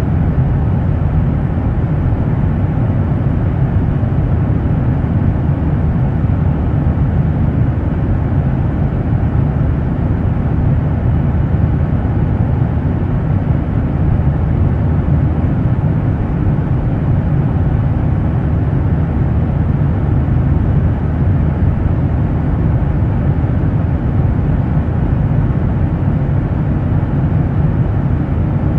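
A steady, loud low rumble that does not change, with no distinct strikes, tones or voices in it.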